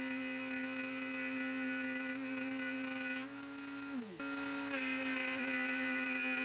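Electric wood router in a router table running with a steady high whine. Its pitch sags for about a second a little past halfway, as if the motor takes load from the cut, then picks back up.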